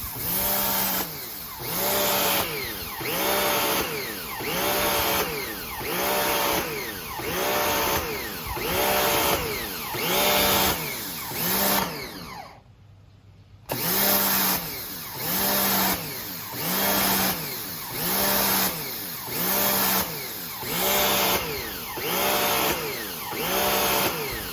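Pressure washer motor repeatedly revving up and down, about once every second and a half, instead of running steadily: the motor is cycling, so the washer does not hold constant pressure. About halfway through, the sound drops out for roughly a second, then the surging resumes.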